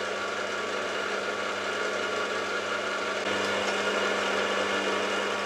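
Warco Super Major milling machine running, its spindle turning a spring-type edge finder: a steady motor hum with a whine from the drive. It gets slightly louder about three seconds in.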